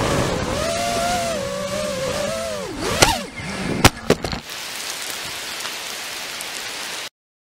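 FPV quadcopter's motors whining with a wavering pitch, then dropping and briefly rising again about three seconds in as it comes down. Two sharp knocks around four seconds in as it touches down on asphalt, then a steady hiss of wind on the microphone until the sound cuts off abruptly near the end.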